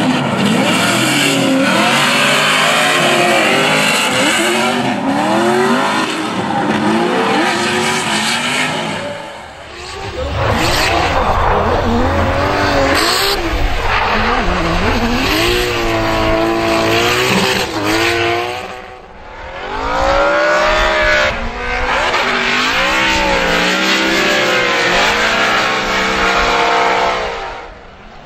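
Drift cars run hard, engines revving with a pitch that keeps rising and falling over a hiss of squealing tyres. There are three loud runs, each dipping away briefly before the next, about every nine seconds.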